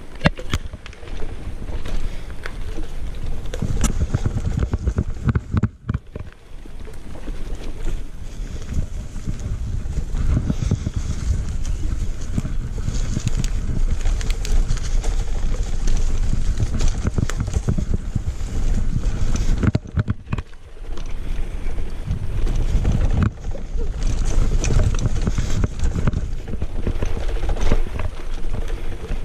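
Mountain bike rolling fast down a dirt forest trail: wind buffeting the microphone over the crunch of tyres on dirt and the rattle of the bike over bumps. The noise drops off briefly twice.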